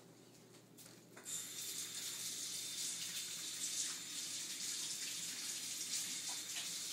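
Water running steadily from a tap, turned on suddenly about a second in.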